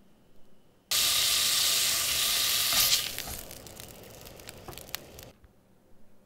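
Food sizzling in a hot frying pan. It starts suddenly about a second in, stays loud and steady for about two seconds, then dies down into scattered crackles that stop about five seconds in.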